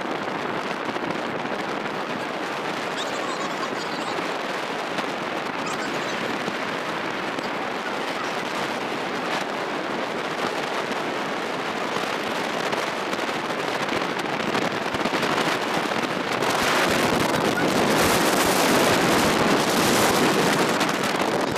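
Steady crackling rush of wind buffeting the microphone and road noise from riding in the open cargo bed of a moving vehicle, louder for the last few seconds.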